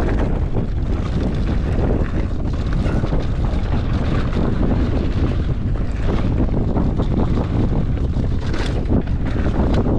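Loud, steady wind buffeting the microphone of a mountain bike riding fast, with frequent short knocks and rattles from the bike running over rock.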